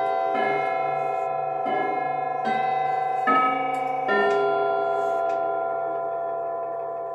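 A 19th-century bracket clock chiming: a run of struck bell-like notes of different pitches, about five in a row a little under a second apart, each ringing on into the next. After the last note, about four seconds in, the ringing slowly dies away.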